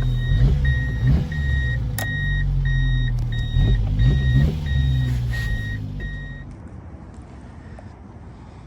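Subaru Sambar mini truck's small four-cylinder engine idling, with a high electronic warning beep repeating about two to three times a second. The engine sound and the beeping both stop about six seconds in.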